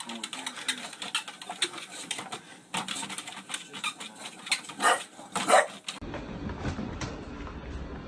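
A dog's sounds: a string of quick clicks and taps, with two short pitched yips about five seconds in. After that a steady low rumble takes over suddenly.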